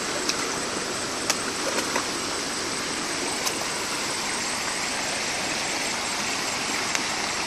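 Steady rushing of stream water pouring over a low weir, with a few sharp clicks.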